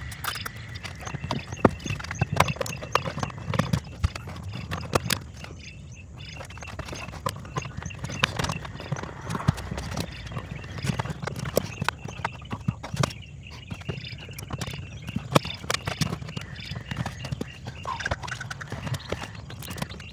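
Irregular small clicks, taps and knocks of hands working on a plastic breaker enclosure and its wiring.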